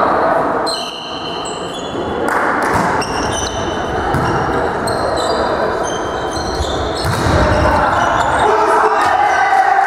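Sneakers squeaking on a gym floor in many short high chirps during a volleyball rally, with a few dull thuds, echoing in a large sports hall.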